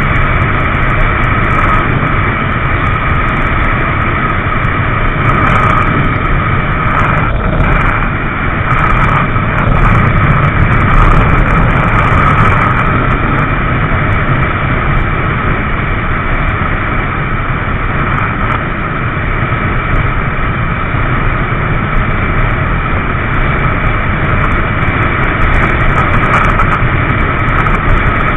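Motorcycle cruising at freeway speed: a steady engine drone mixed with rushing wind noise, with no let-up in speed or level.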